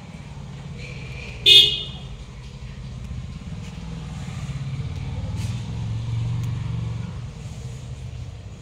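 Motor vehicle engine rumbling past, swelling and then easing off, with one short horn toot about one and a half seconds in.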